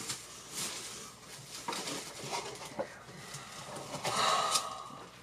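Faint handling noises: soft clicks and rustles, with a brief hiss a little after four seconds in.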